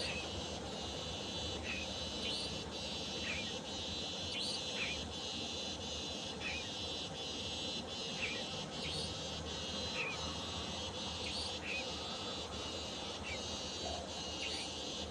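Nightjar chick calling with short, high, downward-sliding chirps, repeated about once a second: hungry begging calls to its parent. Steady insect chirring runs underneath.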